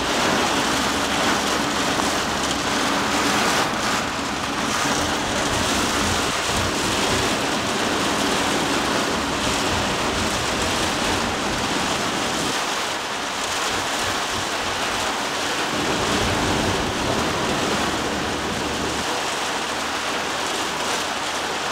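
Heavy rain beating steadily on a vehicle's roof and windscreen, heard from inside the cabin as a dense, unbroken hiss.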